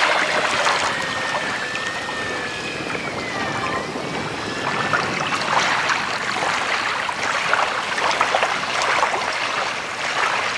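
Electric motor and propeller of a Carbon-Z Cub RC floatplane flying away, a faint whine that drops and wavers in pitch during the first few seconds. Under it runs a louder, steady crackling wash of noise.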